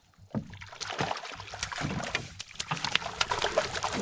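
A hooked lake trout splashing in the water beside a canoe as it is netted, with irregular knocks and clatter against the canoe.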